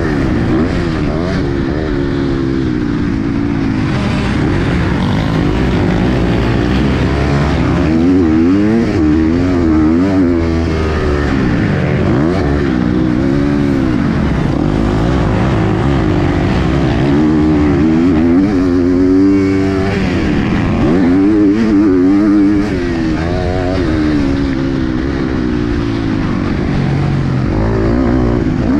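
KTM SX-F 250 four-stroke single-cylinder motocross engine under race throttle, heard from on board: its pitch climbs and drops over and over as the rider opens and closes the throttle through the gears.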